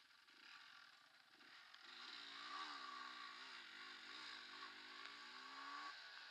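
Yamaha DT230 Lanza's two-stroke single-cylinder engine, heard faintly as the bike rides a rough trail, its pitch rising and falling repeatedly as the throttle is worked; it breaks off near the end.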